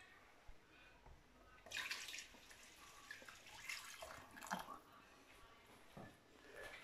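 Water poured from a plastic measuring jug into a stainless steel pot of lentils and vegetables, a faint trickling splash that comes and goes, adding water until it covers the lentils.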